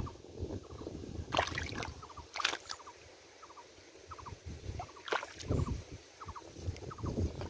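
Shallow paddy water sloshing and splashing as hands work through it, with three sharper splashes about a second and a half, two and a half, and five seconds in. Short chirping calls repeat faintly in the background.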